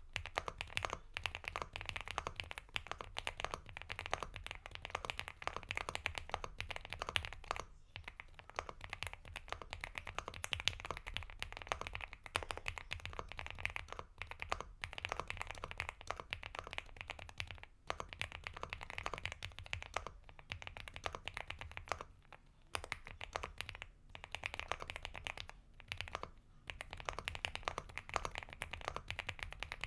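Continuous fast typing on an Epomaker x Feker Galaxy80 mechanical keyboard with Gateron Milky Yellow Pro V2 linear switches, a dense run of key clacks with a few brief pauses.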